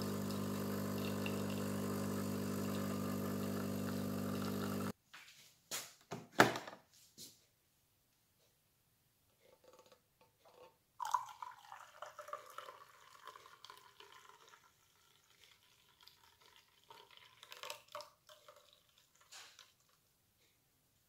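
Automatic coffee machine's pump humming steadily as it dispenses coffee into a mug, cutting off sharply about five seconds in. A few clicks and drips follow, then water is poured from a glass jug into the mug for several seconds.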